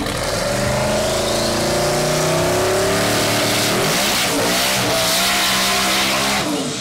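Twin-turbo LS-swapped Chevrolet OBS Silverado doing a burnout: the engine is held at high revs and rises slowly in pitch while the rear tires spin with a steady hiss. The engine note drops away near the end.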